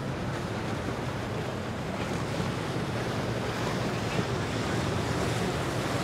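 Steady rush of water and wind buffeting the microphone, with the low rumble of a boat motor underneath, growing a little louder in the second half.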